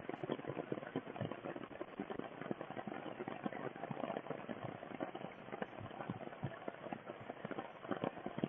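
Rain pattering on wet leaves and ground: a dense, irregular crackle of many small drops that goes on steadily.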